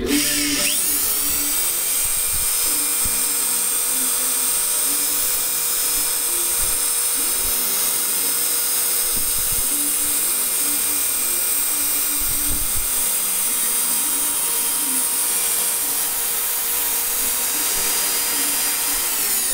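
Corded electric drill running steadily at full speed: a loud, high motor whine. It spins up quickly at the start.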